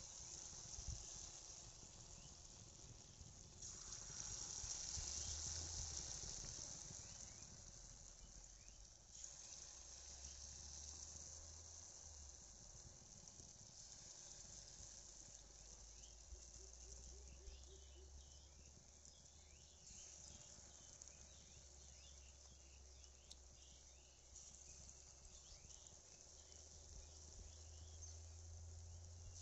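Faint sizzling of hot oil in a karahi as egg pakoras fry, with fine crackling. It swells for a few seconds about four seconds in.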